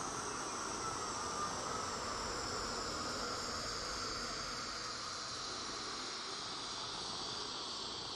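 Steady, high-pitched hissing drone of ambient sound with no clear rhythm. A faint falling tone sounds about a second in.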